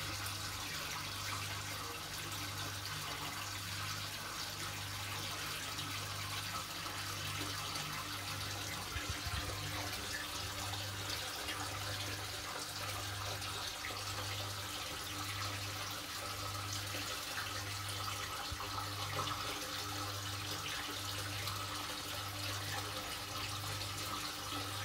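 Aquarium water circulation: steady splashing and bubbling where the flow churns the water surface. Under it a low hum swells and fades about once a second.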